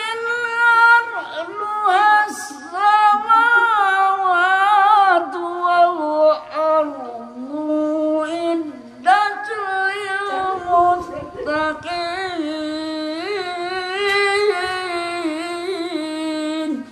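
An elderly man reciting the Quran in melodic tilawah style, in a high voice. He sings long held phrases with rippling ornaments and slow rises and falls in pitch, pausing only briefly to breathe.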